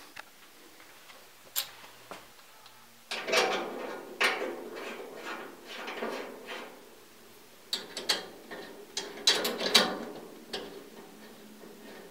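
Irregular metallic clicking and rattling as a yellow corrugated flexible gas supply line is handled and its flare fitting threaded by hand onto the heater's gas inlet. A single sharp click comes about a second and a half in; the rattling starts about 3 s in, with a few sharper ticks near the end.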